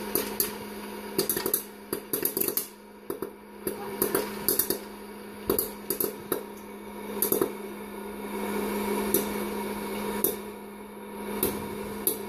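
Hot-air popcorn popper running with a steady fan-motor hum, while kernels pop and popped corn lands in a stainless steel pot in sharp, irregular clicks. The clicks come thick at first and thin out over the second half.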